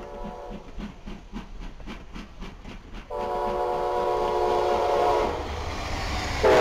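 Locomotive air horn sounding a multi-note chord: a blast ends just after the start, a long blast comes in about three seconds in, and a louder one starts near the end. Between the blasts there is a regular ticking, about three beats a second.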